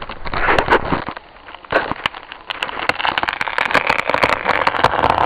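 A big tree falling after being wedged over: the wood cracks and branches snap and crash in a dense run of sharp cracks, thickest in the second half.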